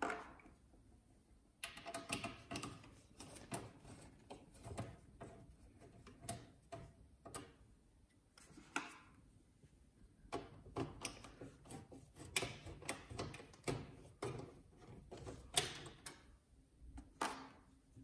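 Faint, irregular clicking and ticking of a screwdriver backing out the power supply's mounting screws on the back of a PC case, with small metal taps as the screws are handled. There are short pauses near the start and about halfway through.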